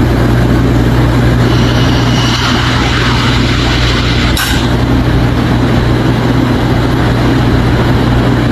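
An engine running steadily with a low, even hum, and a short click about four and a half seconds in.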